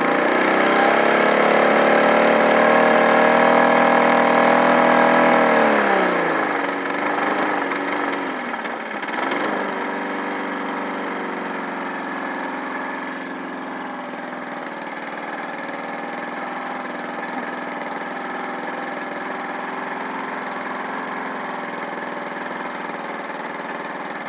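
Petrol lawn mower engine revved high and held for about five seconds, then dropping back, revving briefly once more about nine seconds in, and settling to a steady lower-speed run.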